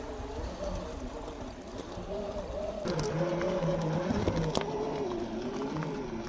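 Electric motor and geared drivetrain of an Axial SCX10 II scale RC crawler whining, the pitch wavering up and down with the throttle, with a few sharp clicks.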